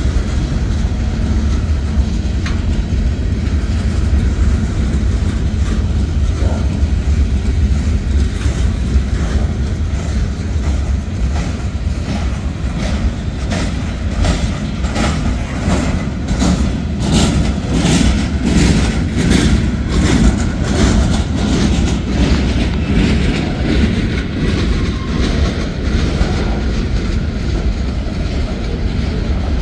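Freight cars of a Norfolk Southern manifest train rolling past, a steady rumble of wheels on rail. Through the middle stretch there is a rhythmic clickety-clack of wheels passing over rail joints.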